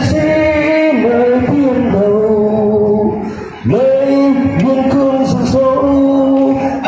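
Man singing a slow song into a handheld microphone, holding long notes and gliding between them, with a short breath break about three and a half seconds in.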